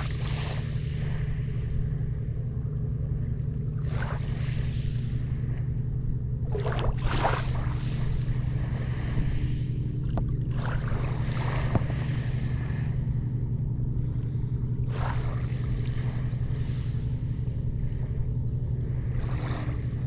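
A steady low motor drone, with soft rushes of small waves lapping at the water's edge every few seconds.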